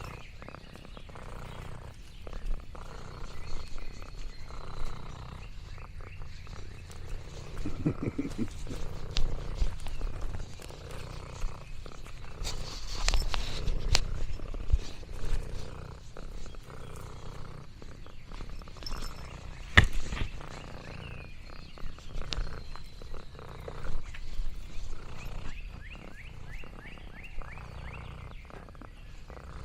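Domestic cat purring steadily in a low rumble that swells and eases with each breath, with a couple of sharp clicks.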